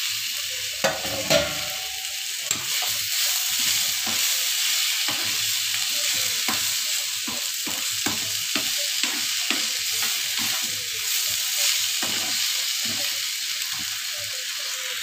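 Chopped onions and tomatoes sizzling in hot oil in a frying pan, with a metal ladle stirring and scraping against the pan in short strokes. Two knocks sound about a second in.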